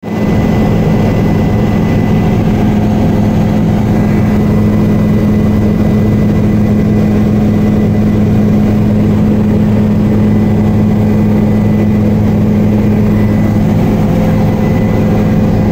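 Helicopter in flight heard from inside the cabin: the steady drone of rotors and engine, a loud low hum with a faint high whine above it.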